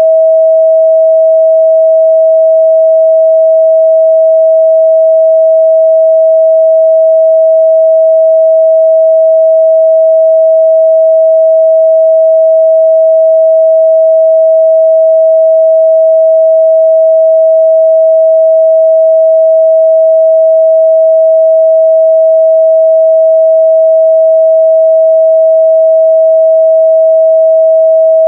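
Steady 644 Hz sine-wave test tone, a single pure pitch held without change.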